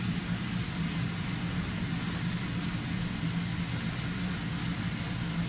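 Electric blower fan of an inflatable bounce house running continuously, a steady hum of moving air with a low drone.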